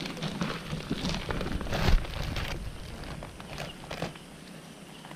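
Plastic bags and leafy undergrowth rustling and crackling as people step and handle things in the brush: a dense run of short rustles, loudest about two seconds in, thinning out near the end.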